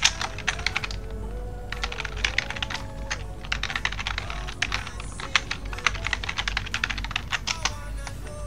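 Typing on a computer keyboard in several quick bursts of keystrokes, with background music underneath.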